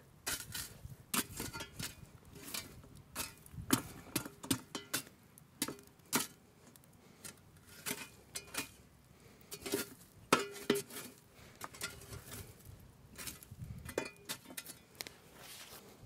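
A metal shovel scraping and knocking through the embers and charred logs of a wood fire, pushing them against a concrete block: irregular scrapes and clinks about once a second.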